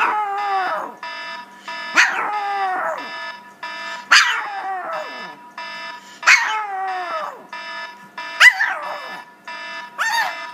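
A Pomeranian howling along with an iPhone alarm. The alarm is a repeating electronic tone pattern. The dog gives about six short howls, roughly every two seconds, each starting high and sliding down in pitch.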